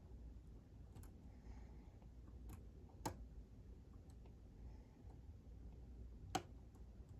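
Faint, sparse metallic clicks of a hook pick and tension wrench working the pins inside a Sargent Signature lock cylinder, a handful of single ticks with the loudest about six seconds in.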